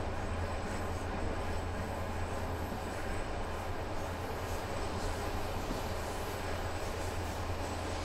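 Running noise of a moving passenger train, heard inside the carriage: a steady low hum under an even rumble.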